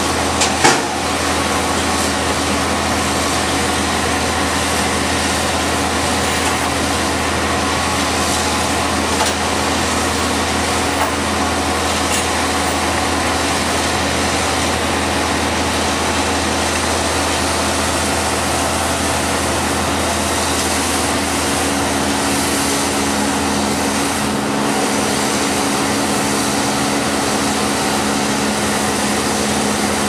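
Diesel trucks and machinery of a tree-removal crew running steadily in a constant drone, with two sharp knocks just under a second in.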